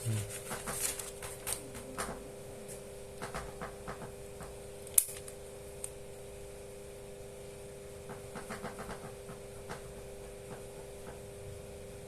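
Small plastic clicks and ticks from handling a needle-free injector pen, with one sharp snap about five seconds in, over a steady low hum.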